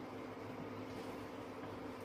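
Steady low hum with a faint hiss, unchanging throughout.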